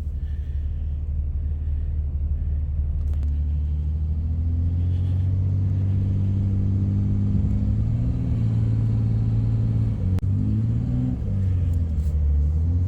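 Vehicle engine labouring under load, revving up about four seconds in, easing off briefly near ten seconds and revving again, as it strains to pull a pickup stuck in snowy mud.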